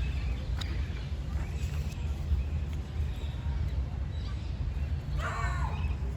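Wind rumbling on the microphone with scattered bird chirps, and a dog barking once near the end.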